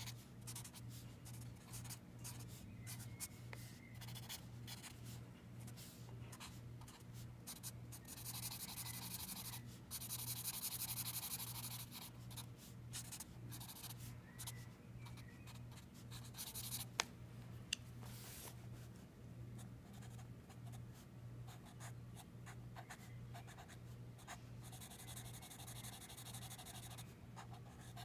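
Sharpie permanent marker scratching across sketchbook paper in many quick short strokes. About eight seconds in, and again near the end, come longer stretches of steady scribbling as solid black areas are filled in.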